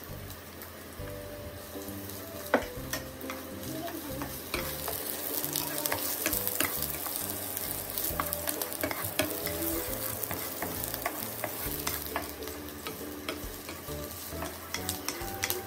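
Chopped onions and vegetables sizzling in oil in a non-stick wok, stirred with a wooden spatula that knocks and scrapes against the pan again and again, with one sharper knock about two and a half seconds in.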